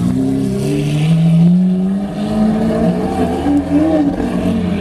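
High-performance supercar engine revving. Its pitch climbs over the first second and a half, dips about two seconds in, then rises and wavers again.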